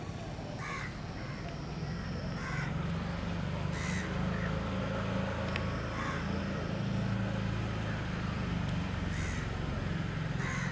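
Crows cawing outdoors, several short separate caws a second or more apart, over a low steady hum that grows louder about two seconds in.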